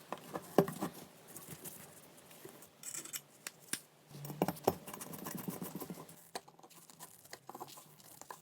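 Scattered small clicks and taps, with a stretch of scraping in the middle, as wooden and metal parts are handled and fitted together by hand during assembly.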